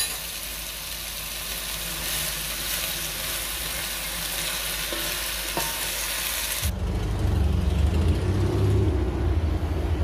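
Cabbage, duck meat and rice sizzling in a large pan on the stove and being stirred with a spatula. About two-thirds of the way in, this cuts off suddenly to the low rumble of city street traffic heard from a balcony.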